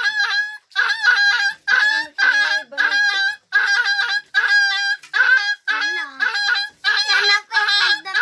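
An animal giving short, honking calls over and over, about two a second, each call held at a steady pitch.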